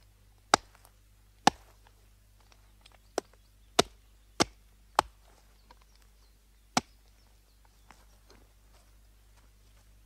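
Axe chopping into wood: seven sharp strikes at uneven intervals, several coming about half a second apart near the middle, then no strikes for the last three seconds.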